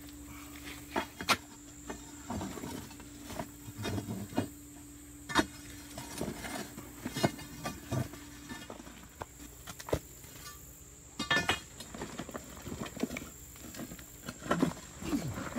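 Steel pry bar clinking, knocking and scraping against rock as it levers apart a boulder already cracked by expansive demolition grout, with chunks of stone grinding and shifting. The hits come irregularly, a few sharp ones standing out.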